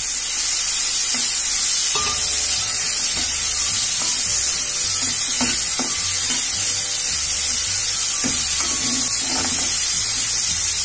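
Chopped tomatoes and shallots sizzling steadily in hot oil in a steel pot while being stirred with a steel spoon. The spoon scrapes and clicks against the pot every second or two.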